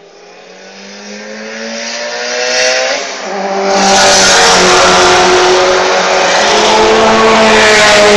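Tuned Subaru Impreza STI's turbocharged flat-four engine at full throttle, growing from faint to very loud as it comes up the straight. The engine note climbs in pitch, breaks briefly for a gear change about three seconds in, and then stays loud at high revs.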